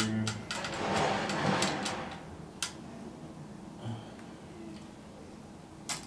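Adjustable wrench scraping and clicking against a bicycle's front V-brake as the brake is worked open. A rustling scrape lasts about a second near the start, then a few single sharp clicks follow.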